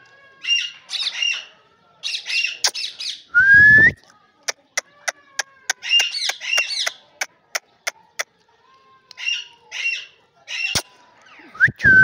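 Rose-ringed parakeets chattering in short bursts of harsh squawks, four times. About three and a half seconds in, and again near the end, there is a loud rising whistle, and between them runs a string of sharp clicks, two or three a second.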